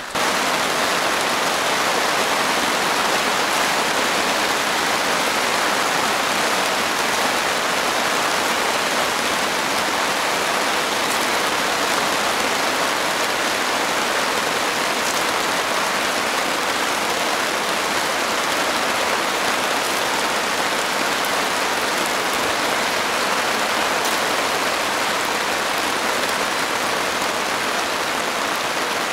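Heavy rain falling steadily on a tarp overhead: a loud, even hiss of rain.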